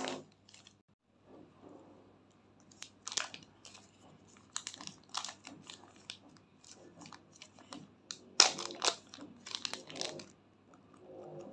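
Clear plastic bag crinkling and crackling as a lump of white slime is unwrapped and peeled off it: a run of sharp, irregular crackles, loudest about eight seconds in.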